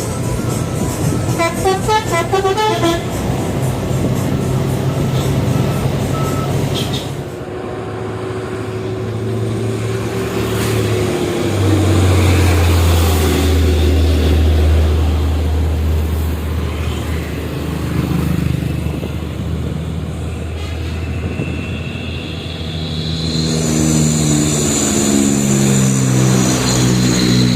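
Heavy trucks sounding telolet horns, multi-tone musical horns playing a quick warbling tune about two seconds in and a stepped melody near the end, over the noise of truck engines on a climb. A long low steady tone fills the middle.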